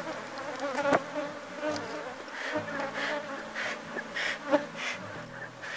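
Swarm of honey bees buzzing steadily over an opened hive, the colony stirred up and somewhat defensive, with foragers crowding the box after rain. A couple of sharp knocks from the wooden hive and frames, about a second in and again near the middle.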